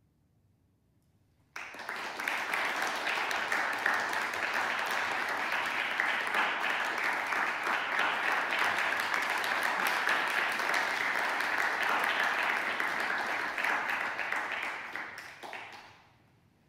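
Audience applauding. It starts suddenly after about a second and a half of near silence, holds steady, then dies away about a second before the end.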